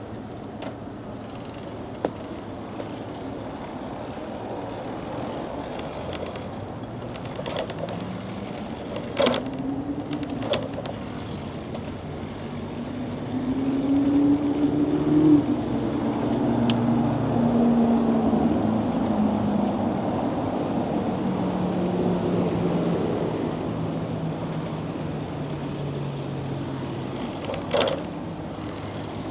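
City street traffic noise. A passing engine drone climbs in pitch and loudness to a peak about halfway, then sinks and fades away over some twenty seconds. A few sharp knocks sound through it.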